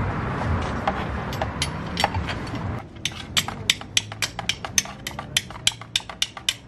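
A run of sharp metallic clicks at the motorcycle's oil drain plug, about five a second, as the 17 mm tool on the plug is worked to break it loose. Under the first few clicks there is a steady rushing noise that stops about three seconds in.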